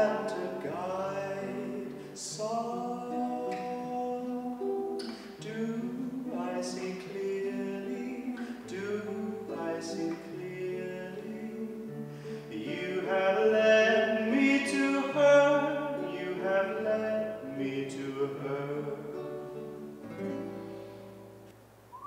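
A baritone sings with his own plucked acoustic guitar accompaniment: sustained sung lines over picked chords and bass notes, the phrase tailing off near the end.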